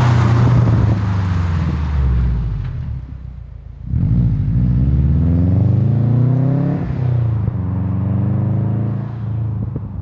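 Subaru GD Impreza's flat-four boxer engine through a titanium cat-back exhaust. The car passes close, then accelerates hard away with the revs climbing, shifts up about seven seconds in and climbs again as it fades into the distance.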